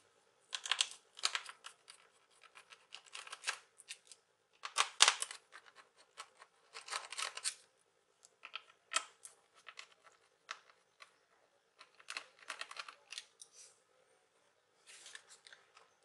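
Small screwdriver undoing screws in a laptop's plastic bottom cover, with hands handling the plastic case: irregular clusters of clicks and scrapes separated by short pauses, the loudest about five seconds in.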